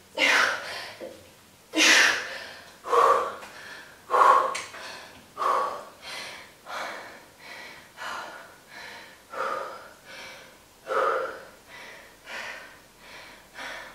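A woman breathing hard and fast through her mouth, out of breath from hard exercise: a heavy exhale about every second, the first few loudest, then easing.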